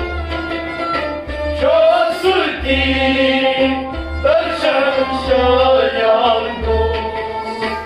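Live Kashmiri folk song: a male voice sings long gliding phrases over a bowed sarangi, a keyboard instrument and a steady hand-drum beat. New sung lines begin about two seconds in and again past the middle.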